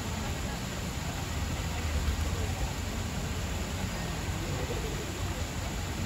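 Steady low rumble and hiss of outdoor background noise, with faint, indistinct voices of people mixed in.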